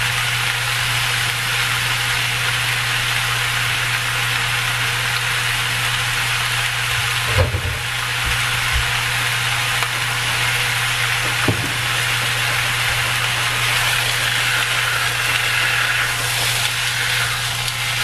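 Chicken pieces frying in a wok, a steady sizzling hiss over a low steady hum, with two light knocks about seven and eleven seconds in.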